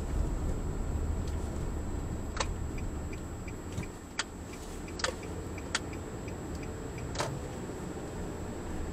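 A car driving slowly, heard from inside the cabin through a dashcam's microphone: a steady low road and engine rumble with a faint high-pitched whine. A turn signal ticks for about two seconds, about three ticks a second, and a few sharp clicks or knocks come from the cabin.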